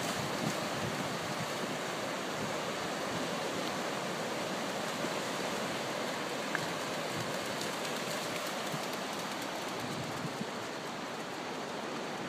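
Sea surf washing onto a sandy beach: a steady rush of breaking waves.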